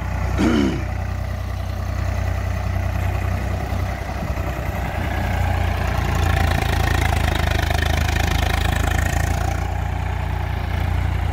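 Swaraj 855 FE tractor's three-cylinder diesel engine running steadily under load as it pulls a laser land leveller past, growing a little louder past the middle as it comes closest.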